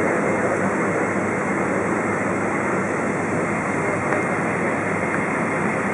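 Steady rushing cabin noise inside a Boeing 777-200 airliner rolling on the ground with its engines running, heard from a window seat over the wing.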